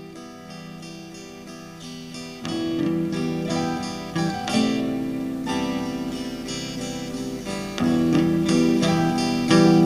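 Intro music on acoustic guitar, picked notes with strummed chords. It grows louder, with firmer strums about two and a half, four and a half, eight and nine and a half seconds in.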